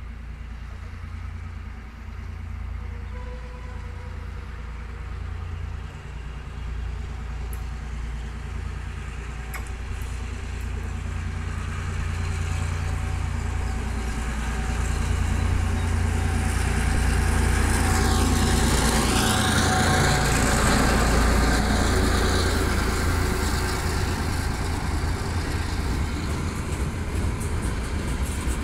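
Two diesel locomotives, an EMD GR12 and an ALCo, approaching with a container train. Their engines' low rumble grows steadily louder, peaks as they pass about two-thirds of the way through, and eases a little as the container wagons roll by.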